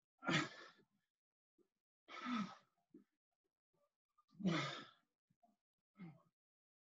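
A person breathing out heavily from exertion: three loud, breathy exhales about two seconds apart and a softer one near the end, the hard breathing of someone in the middle of a cardio exercise.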